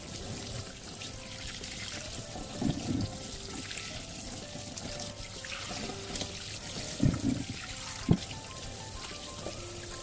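Running, splashing water under background music with a simple stepped melody. A few dull knocks stand out, the sharpest about eight seconds in.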